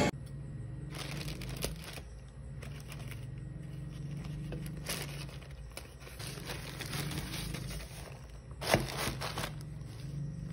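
Plastic courier mailer bag crinkling as it is handled and cut open with scissors, in irregular rustles with a louder rustle near the end, over a steady low hum.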